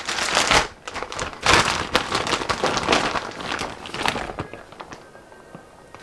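Plastic packaging of mozzarella cheese crinkling and rustling as the cheese is shaken out and spread on the pizza, a dense crackle that dies away about four and a half seconds in.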